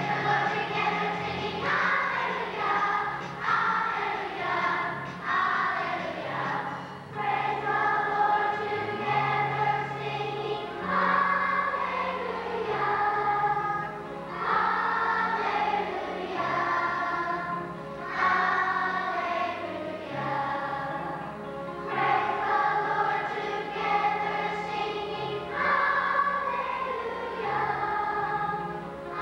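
Large children's choir singing together over instrumental accompaniment with a low bass line, in phrases of a few seconds each.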